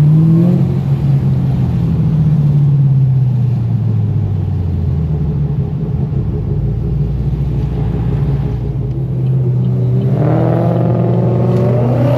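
Car V8 engine running: the revs fall away and settle into a low steady burble, then climb again near the end as it accelerates.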